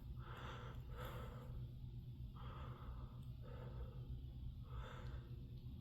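Faint steady low hum of HVAC airflow through ductwork, with a few soft, short breathy puffs over it.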